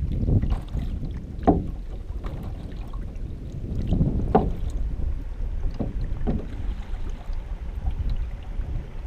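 Water sloshing and gurgling against the bow of a moving canoe, with a few brief swishing surges, under a steady low rumble of wind on the microphone.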